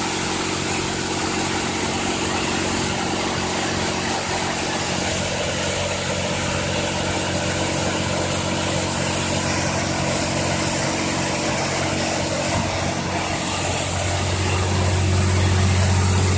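Oasis Monsoon touchless car wash during its high-pressure rinse: the pump motor runs with a steady hum under the hiss of the water jets spraying the car. About two seconds before the end, a deeper hum grows louder.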